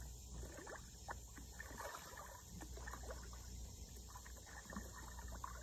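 Faint, scattered small splashes and pops of coppernose bluegill rising to take floating fish-food pellets at a pond's surface.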